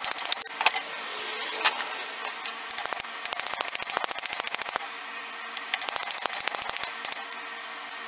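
Small hammer tapping rapidly on brass pins set through a wooden handle resting on a steel block anvil, peening the pin ends over to rivet the handle. The taps come in quick runs of about ten light strikes a second, each lasting a second or two, with one harder blow just under two seconds in.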